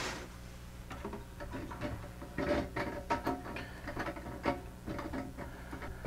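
Hard plastic clicking and rattling as a winged plastic nut is spun by hand onto the threaded shank of a toilet fill valve, in short irregular bursts.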